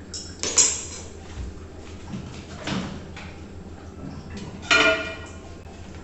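Cookware being handled at a kitchen counter and microwave: a sharp clack about half a second in, a duller knock near three seconds, and a short ringing metal clank near five seconds, over a steady low hum.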